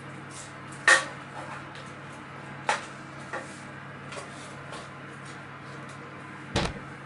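A spoon clinking and scraping against a metal roasting pan as vegetables are stirred in it: a few sharp clinks, the loudest about a second in, and a heavier knock near the end, over a steady low hum.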